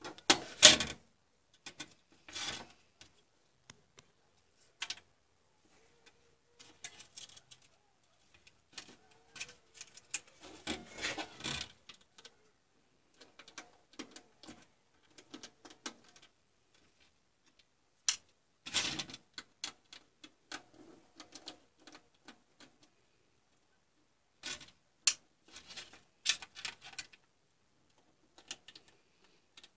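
Handling noise from repair work on an opened digital photo frame: its plastic housing and circuit board being moved and pressed, and hand tools handled, in scattered rubs, clicks and scrapes with quiet gaps between them. The loudest bursts come right at the start and again a little past halfway.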